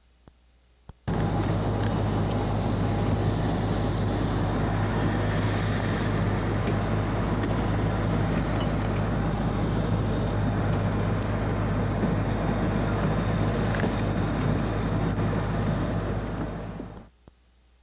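Steady running noise of a moving vehicle with a constant low hum. It starts abruptly about a second in and fades out near the end.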